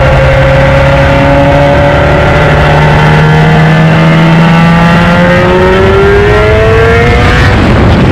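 Four-rotor Mazda 26B rotary engine in a Holden FJ accelerating hard, its note rising steadily in pitch for several seconds, then dropping sharply near the end at an upshift.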